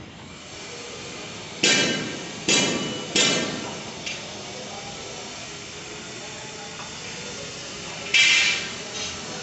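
Hammer blows on hard material: three sharp strikes about a second apart, then one more about five seconds later and a fainter one just after it. Each strike rings briefly.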